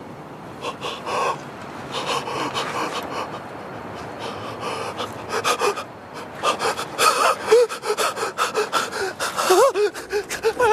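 A person breathing hard and gasping, the breaths coming faster and louder, with short whimpering cries in the last few seconds.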